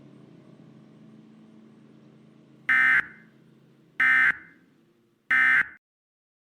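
Three short buzzing bursts of EAS SAME end-of-message data tones, evenly spaced about a second apart, signalling the end of the alert broadcast. A faint steady hum comes before the first burst.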